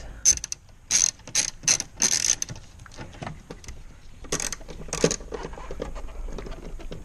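Hand ratchet clicking in short bursts while driving T30 Torx fasteners, with a run of quick bursts in the first couple of seconds and two more about five seconds in.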